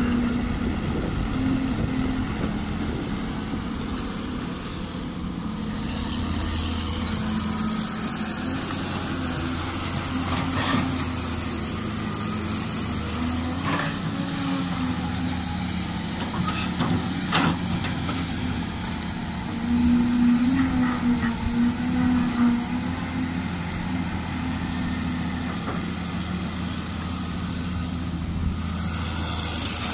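Caterpillar 320B hydraulic excavator's diesel engine running under digging load, getting louder for a couple of seconds about two-thirds of the way through, with a few sharp knocks.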